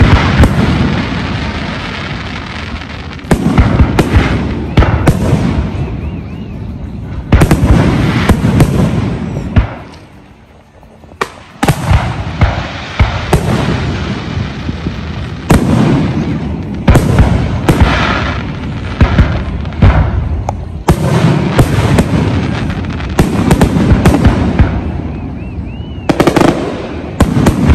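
Aerial fireworks display: shells booming and crackling in rapid succession, with a brief lull about ten seconds in.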